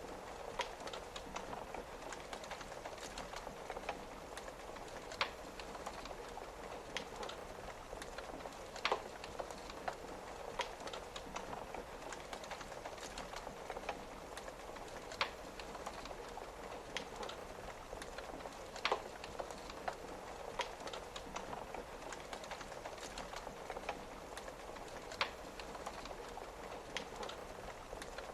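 Wood fire crackling, with sharp pops at irregular intervals, over a steady hiss of rain on a window.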